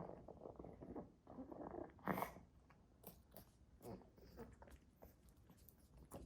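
Pekingese dog eating a treat: quiet, irregular chewing clicks and smacks, with one louder burst about two seconds in.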